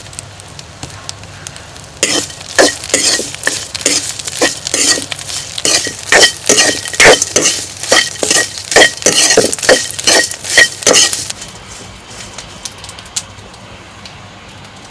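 A spatula stirring and scraping prawn shells roasting in a wok, in quick, even strokes about two a second with a metallic ring. The strokes run from about two seconds in and stop about eleven seconds in, leaving a quieter background.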